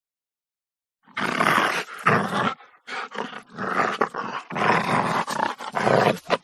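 Angry dog snarling and growling in three long, loud bouts, the first starting about a second in.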